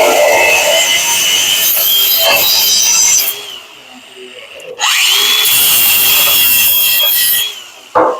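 Angle grinder working steel, a loud high whine over a gritty rasp. It stops about three seconds in, then spins back up with a rising whine a second and a half later and runs nearly three seconds more before winding down. A short sharp knock comes near the end.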